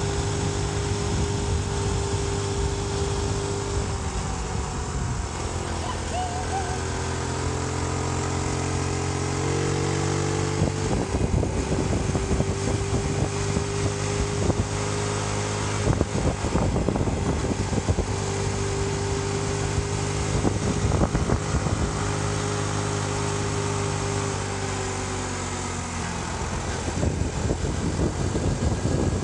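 A vehicle engine running at a steady cruising pace, its pitch dipping and then recovering now and then. Wind buffets the microphone in gusts through the middle and later part.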